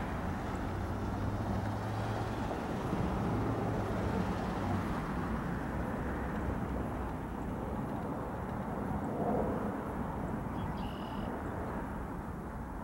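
Two diesel locomotives running together as they approach slowly: a steady low engine rumble, with a faint even hum that fades out about five seconds in.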